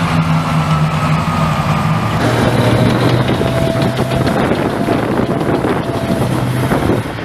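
Diesel engines of tracked armored vehicles running steadily: M109 Paladin self-propelled howitzers at first, then, after a sudden change about two seconds in, an M2 Bradley fighting vehicle with a lower engine note and a faint high whine.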